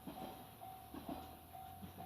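Level-crossing warning bell ringing faintly, one repeated tone about twice a second, with a few soft wheel thumps from the single-car train moving away.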